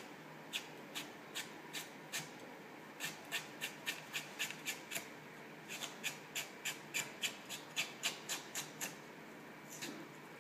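Chef's knife slicing a raw carrot on a wooden cutting board: a run of sharp, even chops, about three a second, broken by a couple of brief pauses.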